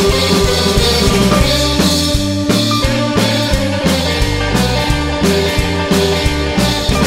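Instrumental break of an upbeat rock song played by a band with guitar, bass and drum kit, without singing.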